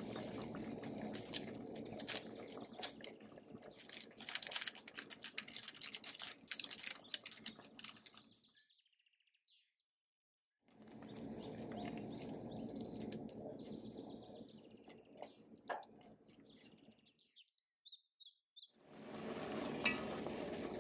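A pot of instant noodles in water bubbling on the stove: a steady hiss with many small crackles. The sound drops out for about two seconds near the middle, and short bird chirps come in near the end.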